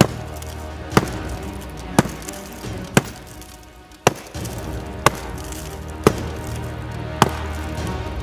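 Tops Knives Bushcrafter Kukri blade chopping into a dry, rotted log, a sharp chop about once a second, eight strikes in all, over background music.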